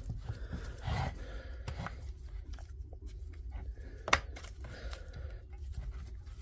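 Plastic housing of a cordless SDS hammer drill being handled and fitted together by hand: soft rustling and small clicks, with one sharper click about four seconds in.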